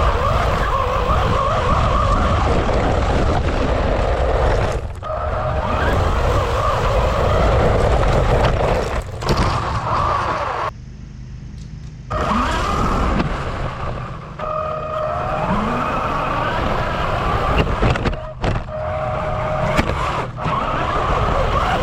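DEERC 1:14 Fast Shark RC truck being driven: its electric motor whines, rising and falling in pitch as it speeds up and slows, over a steady noise of tyres and gears. About halfway through the sound drops away for roughly a second before picking up again.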